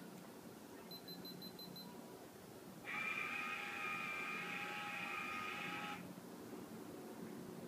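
Sky-Watcher AllView robotic mount's motor whining steadily for about three seconds as it slews the camera to the next panorama position, then stopping abruptly. A quick run of short high beeps comes about a second before it.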